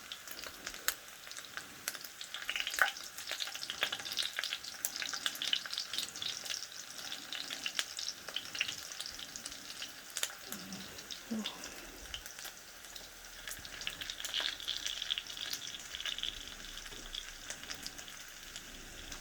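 Longganisa, a sweet Filipino sausage, sizzling in a frying pan with a steady hiss and frequent sharp crackles and pops, the pieces near the end of frying and browning.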